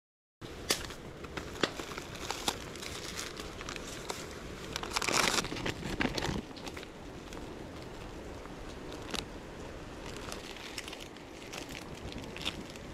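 Plastic food packaging crinkling and being torn open by hand, in a string of sharp crackles, with a louder stretch of rustling about five seconds in.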